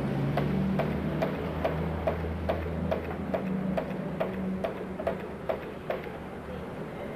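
Sharp, evenly spaced ticks, about two and a half a second, over a low steady hum that fades about four and a half seconds in.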